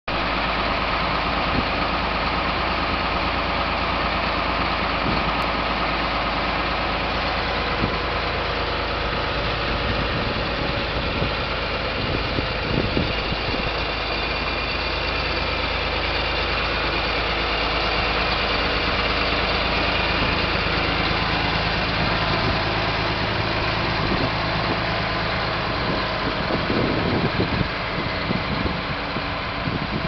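John Deere 8430 tractor's diesel engine idling steadily.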